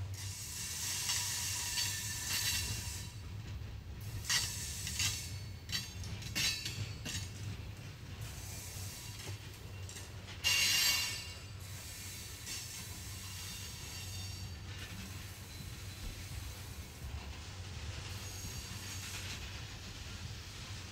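Loaded ethanol tank cars of a freight train rolling past: a steady rumble of steel wheels on rail, with a run of sharp wheel clicks a few seconds in and a brief high wheel screech about ten seconds in.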